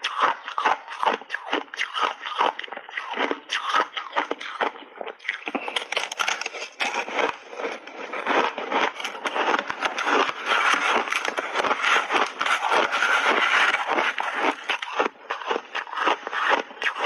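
Close-miked crunching of refrozen crushed ice being bitten and chewed: a dense run of rapid cracks and crackles, thickest through the middle.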